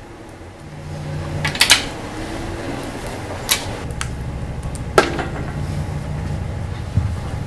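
Metal clinks and knocks from head bolts and an aluminium cylinder head being taken off an engine block: a quick cluster of clinks about a second and a half in, a single clink, then a sharp ringing knock about five seconds in. A steady low hum runs underneath.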